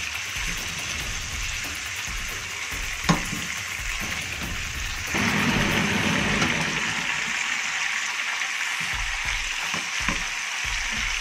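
Small pieces of meat frying in ghee with seven-spice and black pepper in a pan, sizzling steadily. A single sharp tap comes about three seconds in. The sizzle grows louder about five seconds in and stays so.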